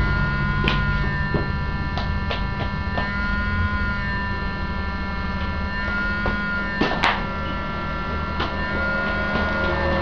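A steady low electrical hum with faint high steady tones over it, and scattered small sharp clicks of small plastic laptop-keyboard parts being handled; the loudest click comes about seven seconds in.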